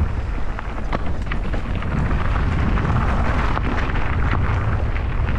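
Riding noise of a mountain bike: wind buffeting the camera microphone in a steady low rumble, with tyre noise and scattered clicks and rattles from the bike.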